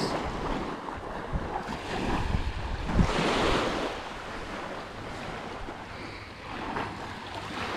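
Waves washing onto a sandy beach, with wind rumbling on the microphone; the surf rises to a louder rush about three seconds in.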